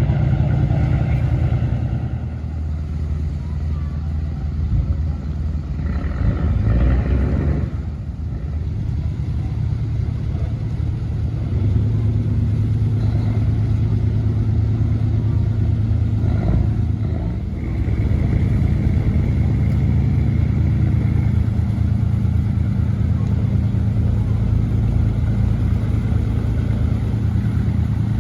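Boat engine running steadily, with a low drone whose pitch and level shift a few times.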